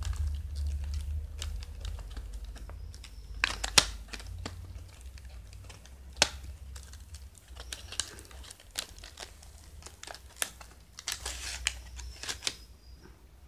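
Hands handling a fidget spinner's small cardboard box and its moulded plastic insert: crinkling and crackling with scattered sharp clicks and taps, the sharpest about four and six seconds in.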